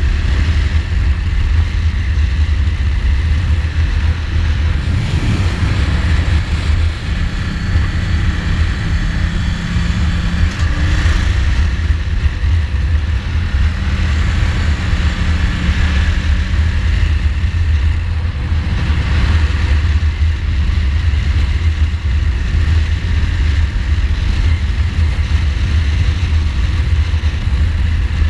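2015 Ducati Multistrada's V-twin engine running at road speed through bends, its note rising and falling with the throttle, over a steady low wind rumble on the microphone.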